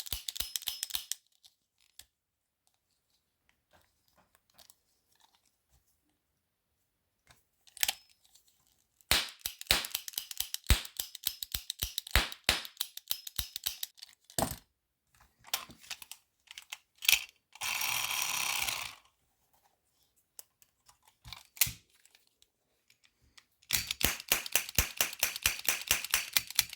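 Toy cap gun firing caps: runs of sharp pops and clicks in rapid succession, in three bursts with quiet gaps between. About two-thirds of the way through there is a hiss lasting about a second.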